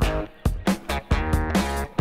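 Background music with a steady beat and pitched instrumental parts.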